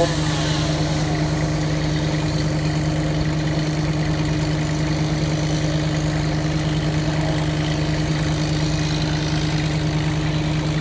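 An engine running steadily at an even speed, with a constant hum and no revving.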